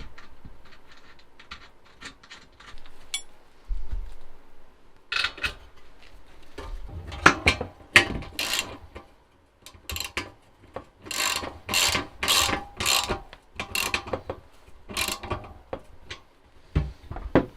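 Socket ratchet wrench clicking in repeated short strokes as bolts are tightened, with a few lighter metal clicks first.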